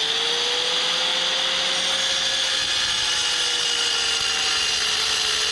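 Corded angle grinder cutting through a stone threshold: a steady high motor whine under a harsh cutting hiss.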